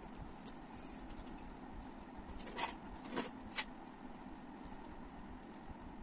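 Graphite pencil scratching on paper: three quick short strokes a little past the middle, over a faint steady background hum.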